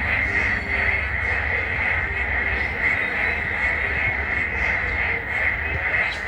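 Loud, dense chorus of frogs calling without a break, with short repeated low calls rising out of the steady din. A low rumble runs underneath.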